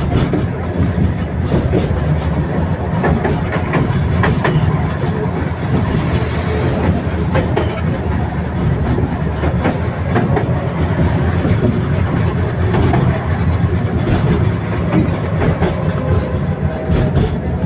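Tatra T3SU tram in motion: a steady low rumble of the wheels on the rails, with scattered clicks and knocks from the track.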